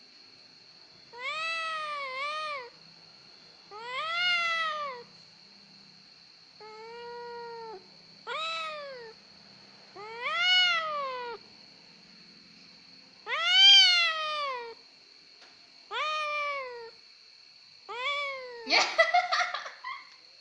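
Young cat meowing over and over, about nine drawn-out complaining meows, each rising then falling in pitch, spaced roughly every two seconds. Near the end comes a harsher, ragged cry.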